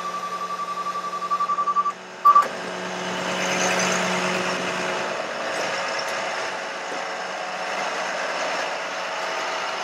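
A bucket truck's warning beeper sounding a high, rapidly pulsing tone about five times a second, cutting off about two seconds in, with one more short loud beep just after. The truck keeps running underneath, its mechanical noise swelling for a couple of seconds after the beeping stops.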